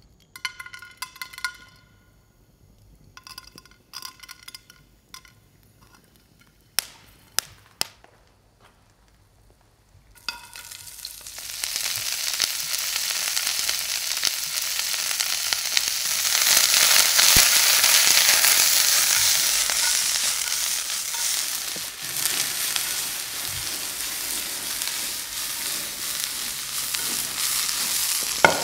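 A few ringing metal clinks and sharp clicks, then, about ten seconds in, food goes into a hot pan and sizzles. The frying builds quickly and stays loud and steady.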